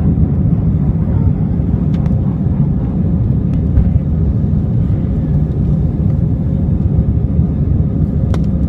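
Steady low rumble of jet engines at climb thrust and rushing airflow, heard inside the cabin of an Airbus A320-family airliner just after takeoff. A couple of faint clicks come through the noise.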